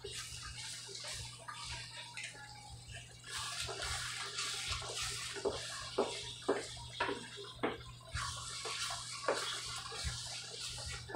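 Wooden spoon stirring a thick tomato and meat sauce in a skillet: wet scraping strokes and knocks against the pan over a steady sizzle from the hot sauce, the hiss growing louder about three seconds in.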